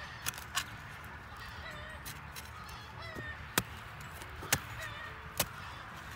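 Sharp knocks of a wooden-handled planting stick jabbed into dry, straw-covered soil to make holes for sowing rice: five strikes, two close together at the start and three about a second apart later. Faint wavering calls sound in the background.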